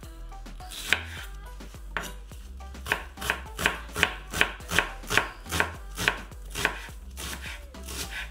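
Ceramic knife chopping an onion finely on a wooden cutting board: sharp knocks of the blade on the board, about one a second at first, then quicker, two or three a second, from about three seconds in, easing off near the end.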